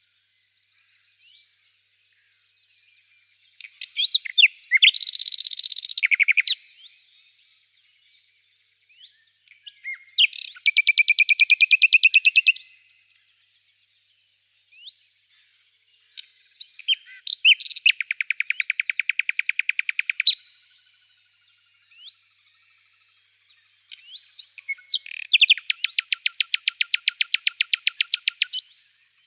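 A songbird singing: four loud phrases of rapidly repeated, evenly spaced high notes, each lasting two to three seconds and coming every six to eight seconds, with short single chirps between them.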